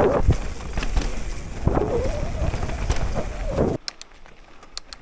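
Mountain bike descending a rocky trail, heard through an action camera's microphone: loud wind buffeting and trail rumble. It cuts off suddenly near the end to a much quieter scene with a few sharp clicks.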